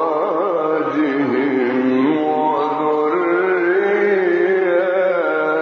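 Male Quran reciter chanting one long melodic phrase with ornamented turns in pitch, rising around the middle and settling lower near the end.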